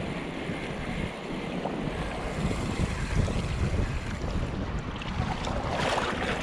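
Wind buffeting the microphone over small waves washing at the water's edge, with a brief louder rush near the end.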